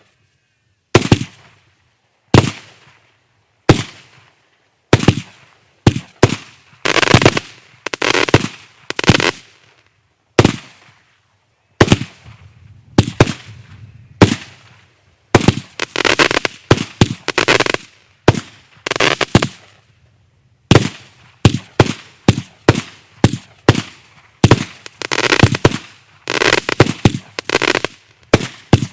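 Kimbolton Razzle Dazzle 49-shot firework cake firing: a string of sharp shots, many followed by a short noisy crackling burst. The shots come about a second apart at first, then quicker and more crowded through the rest.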